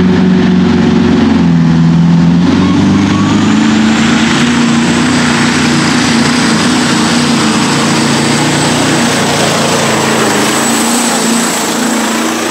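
Competition pulling tractor E-Mostar's engine running loud and steady at full power during a pull, dipping briefly in pitch early on and then holding, with a thin high whine above it from about four seconds in.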